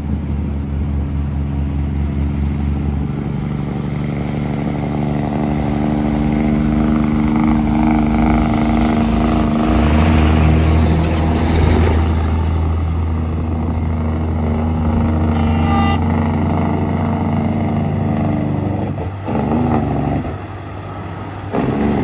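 Diesel engines of tandem-axle dump trucks labouring up a steep grade, running steadily at a low pitch. One truck passes close about halfway through, where the engine and tyre noise are loudest.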